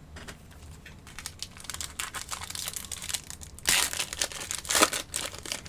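Foil trading-card pack wrapper being crinkled and torn open, a dense crackling with two louder rips in the second half.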